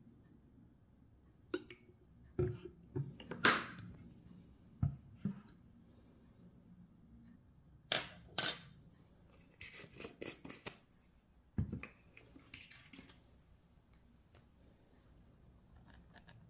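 Scattered clicks, taps and knocks from handling a plastic flip-cap sesame oil bottle, plastic measuring spoons and a glass spice jar around a bowl. The two loudest are sharp clicks, about three and a half and eight seconds in, and a quick run of about five small ticks comes about ten seconds in.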